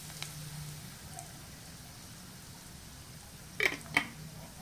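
Lard and chopped garlic sizzling softly in a cast-iron skillet as cassava flour is poured over them, an even light hiss. Two sharp knocks near the end, about half a second apart.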